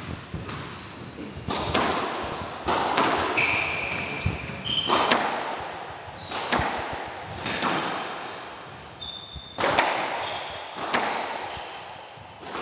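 Squash rally: the rubber ball cracks off rackets and walls about once a second, each hit echoing around the court, with short high squeaks of the players' shoes on the wooden floor between shots.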